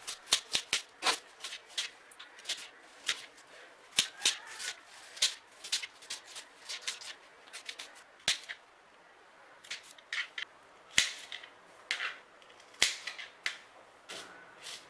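Kitchen knife chopping red onion on a plastic cutting board: irregular sharp knocks of the blade on the board mixed with the crisp crunch of onion being cut, with a short lull about two-thirds of the way through.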